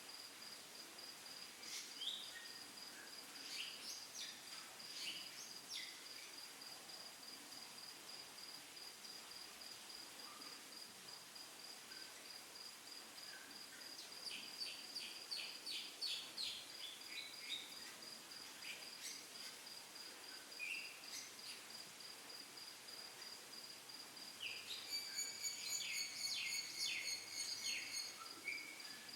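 Faint insect chirping, a steady high pulsing trill throughout, with bird chirps coming in clusters midway and more thickly near the end.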